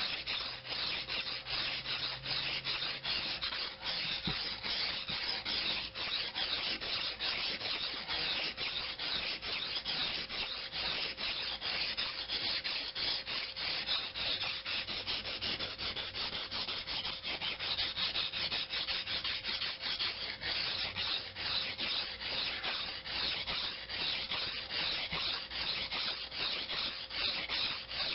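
Steel knife blade stroked back and forth over a wet Japanese water stone: a continuous, fluctuating scrape from repeated sharpening strokes.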